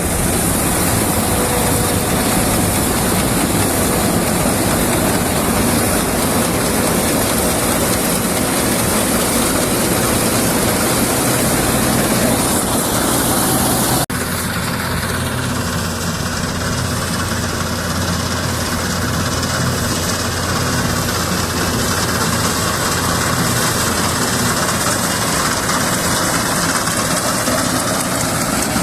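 A 1960s Dania 900 self-propelled combine harvester running steadily, its engine and threshing machinery making a continuous mechanical din. About halfway through, the sound changes abruptly to a deeper, steadier hum.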